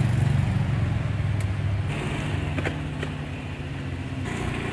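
Small motor-scooter engine running steadily, loudest at the start and easing off a little, with a few light clicks partway through.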